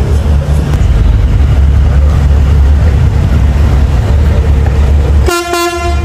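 Steady low rumble of a car ferry's engines as it comes in to the dock. A short horn blast sounds about five seconds in.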